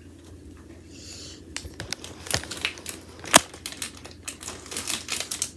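Packaging crinkling and crackling as it is handled, in scattered short bursts, with one sharp snap about three and a half seconds in.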